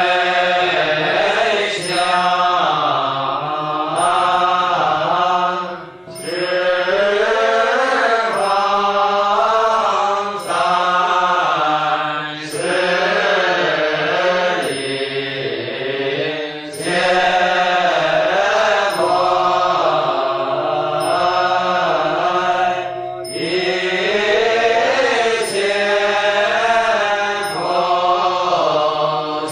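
Chinese Buddhist sutra chanting of a monastery morning service: a group of voices chanting together in a slow, drawn-out melodic line, with short breaks between phrases.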